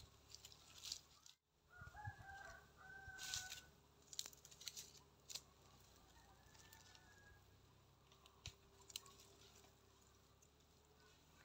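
Quiet crackles and dry rustles of leaves and twigs being lit into a small wood fire under a wok, the loudest about three to five seconds in. A rooster crows faintly about two seconds in.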